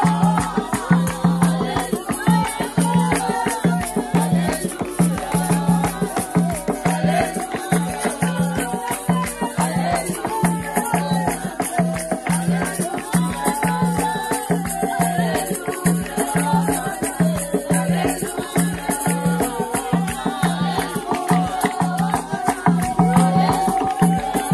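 Congolese gospel song: a drum keeping a steady beat about twice a second, a shaker rattling along, and voices singing.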